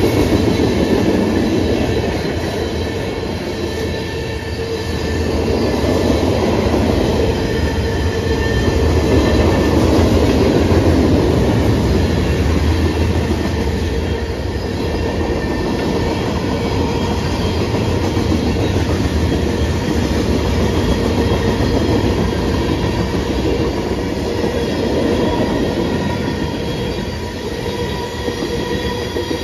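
Freight train's covered hoppers and tank cars rolling past at close range: a steady heavy rumble of wheels on rail, with a thin wheel squeal held over it.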